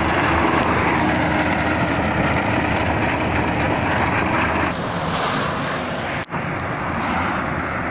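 Bobcat S650 skid-steer loader running hard with its cold planer drum grinding asphalt off the road surface: a loud, steady mechanical din. About two-thirds of the way through it drops a little in level.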